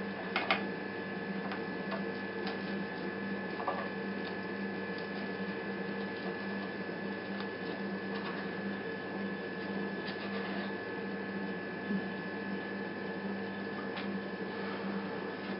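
Steady hum under a low sizzle of a chicken and vegetable kookoo frying in a pan, with a few light clicks and scrapes of a spatula against the pan.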